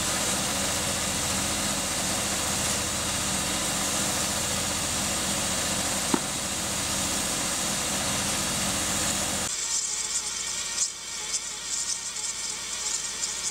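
An engine running steadily, with a single sharp click about six seconds in. About nine and a half seconds in it cuts to a quieter sound with a light, high rattle.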